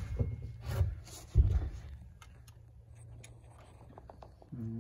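Three dull knocks in the first second and a half, then light scratching clicks as a utility knife scores along the scribed line on a peeled log, so the wood won't split out at the notch.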